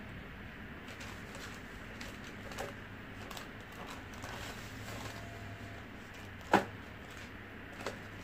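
Sheets of thermal stencil paper rustling and sliding as they are fed into a thermal stencil copier by hand, over a faint steady hum. One sharp click sounds near the end, followed by a softer one.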